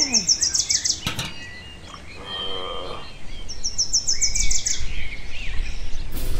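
Birds chirping: two quick high trills of rapid repeated chirps, each about a second long, one at the start and the other about four seconds in.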